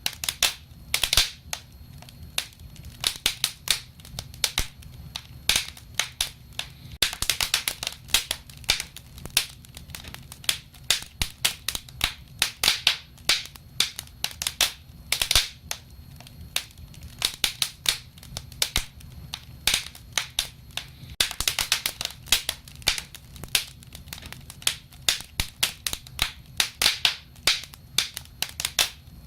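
Wood fire crackling: irregular sharp pops and snaps, at times several a second in dense spells, over a low steady rumble.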